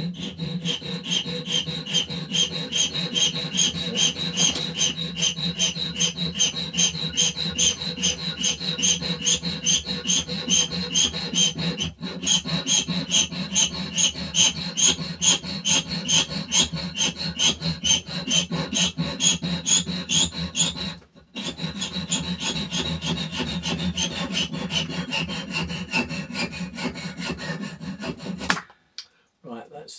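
Junior hacksaw cutting through a model locomotive axle held in a vise, in steady back-and-forth strokes at about three a second, with a short break about two-thirds through and stopping near the end. The rasping is typical of a blade getting a little blunt.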